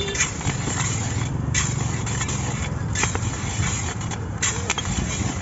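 Long-handled metal skimmer scraping and stirring bean seeds in a large iron wok, in repeated short strokes over a steady background hiss.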